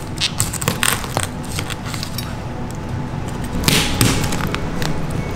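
Heavy chef's knife cutting through the shell of a raw spiny lobster tail on a wooden cutting board: crackling clicks as the blade goes through, and a louder crunch about four seconds in.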